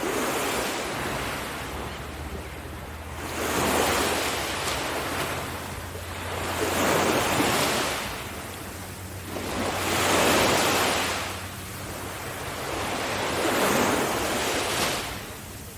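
Sea waves breaking on a beach, each one swelling and washing out, about every three to four seconds, with a little wind.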